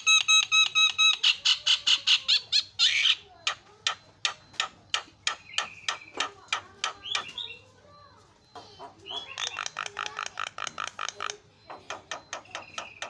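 Javan myna (jalak kebo) singing: a loud, rapid chatter of harsh repeated notes, about five or six a second, opening with a short run of clear ringing notes. Near the middle it drops off for about a second, then bursts into a second dense run.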